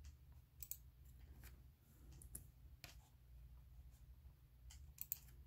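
Faint, scattered clicks of a laptop's pointer button (mouse or trackpad) as objects are selected and deselected in a drawing program, over a low steady hum. There are about six clicks, including a quick pair near the end.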